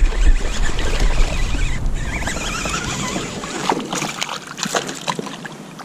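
Hooked bass splashing and thrashing at the water's surface as it is reeled to the side of a kayak, with a run of sharp splashes a few seconds in.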